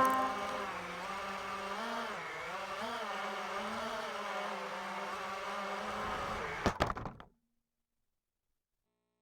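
DJI FPV drone's electric motors humming steadily, their pitch dipping and rising briefly about two to three seconds in. A few sharp clicks follow near seven seconds, and the sound cuts off suddenly.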